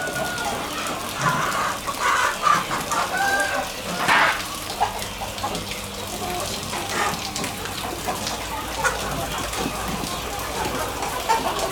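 A flock of chickens clucking and calling over one another, with roosters crowing among them.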